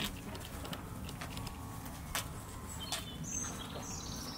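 Cattle drinking at a metal water trough: a few sharp clicks and knocks over a steady low rumble, with a bird chirping briefly near the end.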